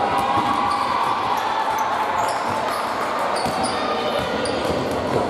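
Basketball game on a hardwood court: a basketball being dribbled and sneakers squeaking in short, high-pitched chirps as players run, with voices in the background.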